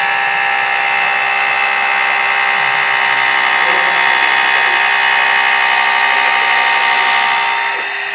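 Homemade CNC machine running, its motor giving a steady whine that cuts off shortly before the end.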